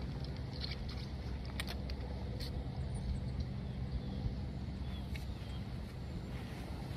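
A steady low engine rumble with a few faint clicks.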